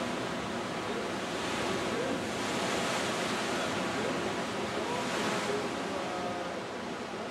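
Ocean surf breaking and churning against the rocks of a sea cave's mouth, a steady rush that swells twice, a couple of seconds in and again about five seconds in.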